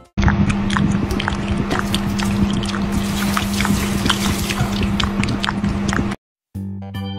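Water splashing and dripping as a wet kitten paddles in a shallow bathtub, many small splashes over a steady low hum. After a short gap about six seconds in, organ music starts.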